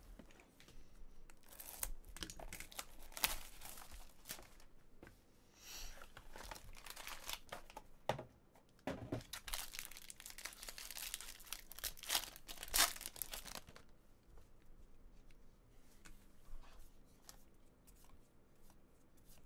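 Plastic wrapping on a trading-card box and a foil card pack being torn open and crinkled in repeated rustling bursts, loudest a little past the middle. Near the end it drops to the softer rustle of the cards being handled.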